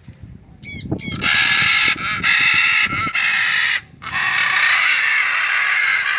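Cockatoo screeching: a few quick chirps, then two long, harsh screeches with a short break between them.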